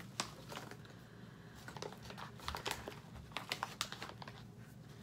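A resealable foil snack pouch of peanuts being handled: crinkling with a quick run of small clicks, thickest in the middle.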